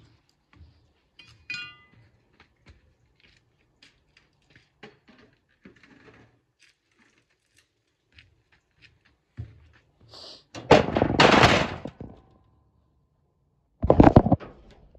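Scattered light clicks and taps from parts and tools handled on a workbench, then a loud noisy clatter lasting over a second, about ten seconds in, and a sharp knock near the end as the camera is picked up.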